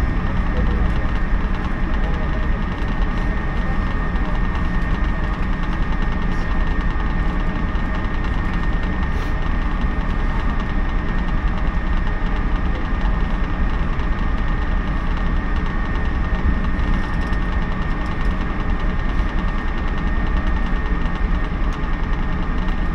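Inside a JNR 113 series electric train pulling slowly into a station: a steady rumble of the wheels and running gear with a thin high tone held throughout.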